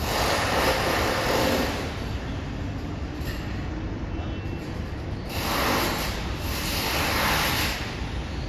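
Renovation work in a building across the street: two long bursts of harsh construction noise, each about two seconds, one at the start and one about five seconds in, over a steady low rumble.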